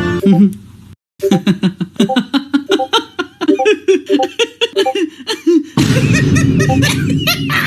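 A person laughing hard in quick repeated bursts, about five a second; a meme sound clip. Near the end a denser, loud sound with rising and falling tones takes over.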